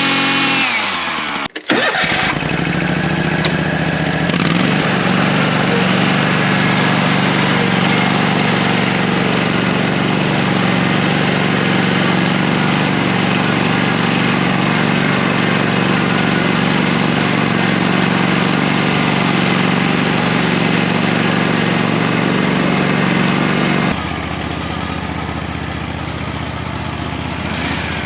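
Engine running at a steady speed, with an abrupt break about a second and a half in and an abrupt change in its sound near the end. The pitch starts rising in the last moments.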